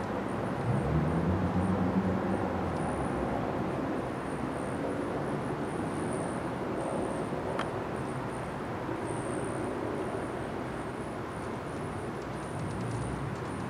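Outdoor background noise: a steady rumble, with a louder low hum that swells about a second in and fades a couple of seconds later, and a single sharp click a little past halfway.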